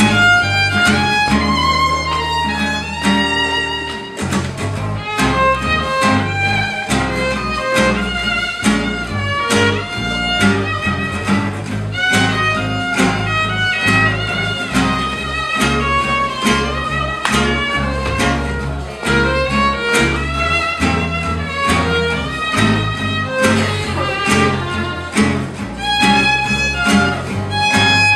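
Small acoustic swing band playing an instrumental break, a violin carrying the melody over strummed rhythm guitars and walking acoustic bass.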